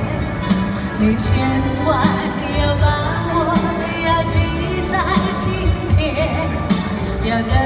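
A woman singing a slow Chinese pop song into a handheld microphone, amplified, over a recorded backing track with a steady beat.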